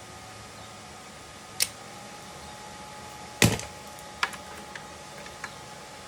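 A few sharp clicks and knocks, with the loudest just past the middle, over a steady hiss with a faint high hum.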